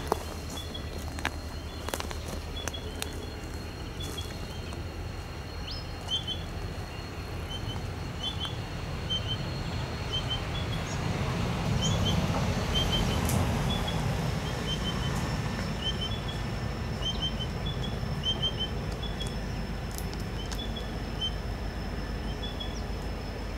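Birds chirping in short, quickly repeated double notes over the low rumble of diesel locomotives moving slowly; the engine rumble swells about twelve seconds in, then eases. A steady thin high tone runs underneath.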